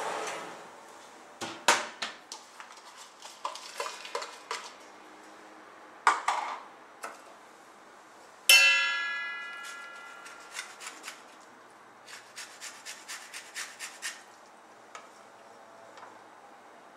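Kitchenware handling on a wooden board: knocks and clinks as a plastic lid comes off a stainless steel beaker and herbs and garlic go in. About halfway through, a single sharp metal strike rings bright and fades over about two seconds. Near the end comes a quick run of light taps.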